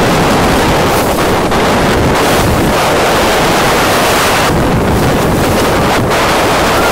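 Loud, steady wind buffeting the microphone over rushing water and waves.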